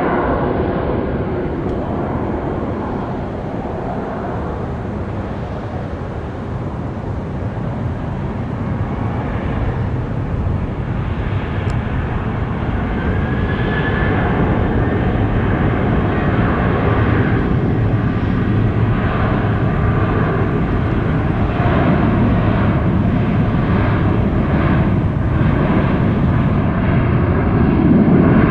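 Jet airliner engines roaring close by, the noise building gradually louder, with a faint rising whine about halfway through.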